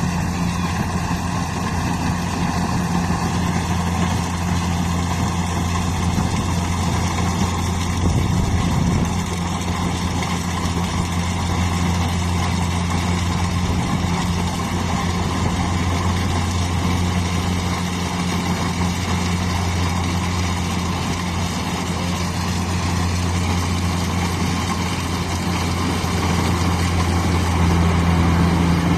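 Engine of harvesting machinery running steadily, a constant low drone that grows a little louder near the end.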